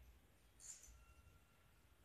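Near silence: room tone, with one faint, brief high-pitched squeak a little over half a second in.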